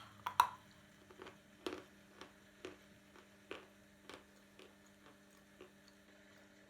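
Someone crunching and chewing a dry, hard lump of edible chalky mineral in the mouth: about a dozen sharp crunches at uneven intervals, the loudest about half a second in. A steady low hum runs underneath.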